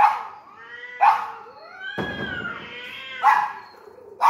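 Dog barking at cats up on a wall: three sharp barks a second or two apart, with drawn-out gliding whines between them.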